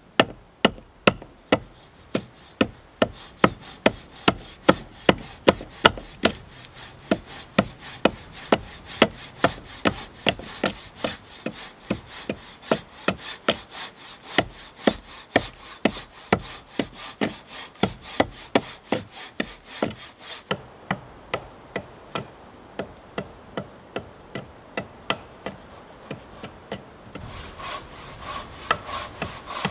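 Hand axe hewing the top of a log flat, each blow biting into the wood with a sharp knock, about two to three blows a second in a steady rhythm. Near the end the chopping stops and a steady scraping noise takes over.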